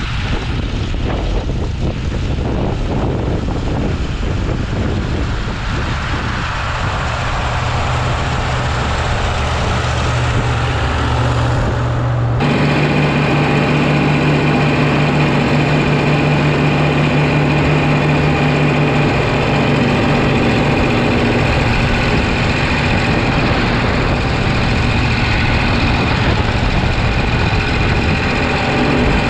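Diesel tractor engine running steadily. About twelve seconds in, the sound changes abruptly to the close-up, onboard sound of the Oliver 2255's Caterpillar 3150 V8 diesel, a steady running note with a strong low tone.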